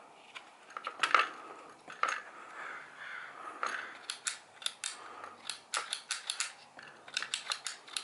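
Black & Decker string trimmer's trigger lever pressed and released repeatedly against its microswitch, a run of sharp plastic clicks about three or four a second, after a few seconds of knocks and rustling as the plastic handle parts and the switch are handled. The clicking tests whether the switch, now raised on a shim plate, is actuated on every press.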